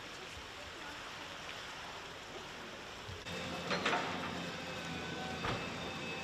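Street ambience of a town street under roadworks: an even background hiss of distant traffic, then from about three seconds in the steady hum of a running vehicle engine, with a brief rushing noise just after it starts.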